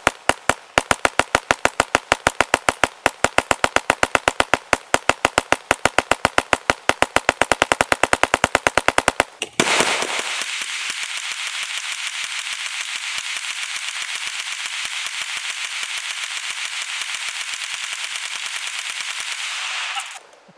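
Tippmann .22 LR hand-cranked Gatling gun firing a long, even string of rapid shots, about eight a second, for some nine seconds. The firing then stops and a steady hiss follows for about ten seconds, cutting off near the end.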